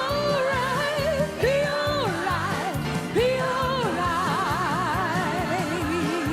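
Gospel song playing: a melody line of long held notes that glide between pitches and waver with vibrato, over continuous backing instruments.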